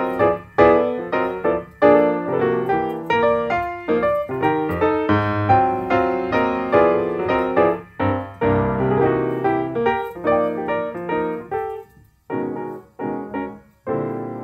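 Background solo piano music: a flowing run of notes and chords, with two brief pauses near the end.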